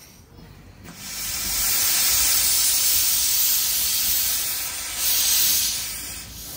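Steam hissing loudly from a 1901 Kerr Stuart 0-4-2 narrow-gauge steam locomotive. It starts about a second in, dips briefly near five seconds, then swells again and fades near the end.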